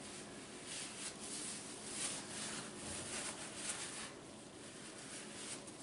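Faint rubbing and rustling of hands at work, with a few soft scrapes.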